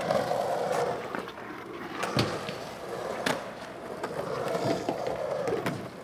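Skatepark recording of several skateboards rolling on concrete: a steady wheel rumble broken by sharp clacks of the boards, the loudest about two and three seconds in.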